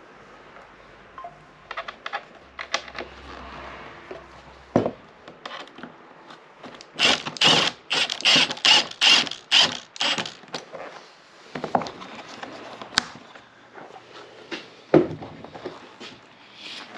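A cordless impact driver driving a screw into a boat's dash panel, hammering in a run of short bursts, about nine in three and a half seconds. Around it come scattered knocks and handling sounds as the panel is moved on the bench.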